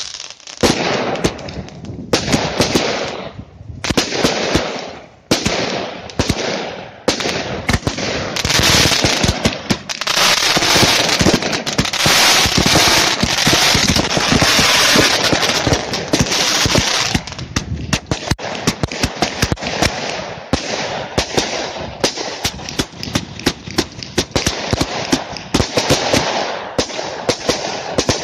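Small Category 2 (F2) consumer fireworks going off: rapid launches and bangs with dense crackling bursts. The noise thickens into a continuous hiss of crackle through the middle stretch, then breaks back into quick single bangs.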